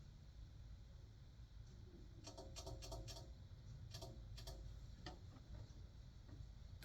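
Faint clicks of a computer keyboard and mouse, in small clusters: a quick run about two seconds in, two more around four seconds, and a single one about five seconds in, over a low steady room hum.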